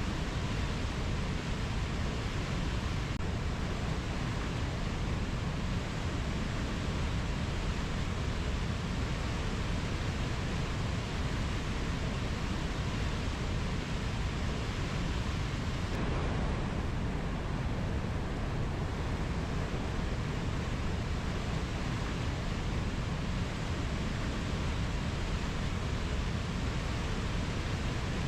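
Rainforest ambience: a steady, even rushing noise, heaviest in the low end, with no distinct calls or events.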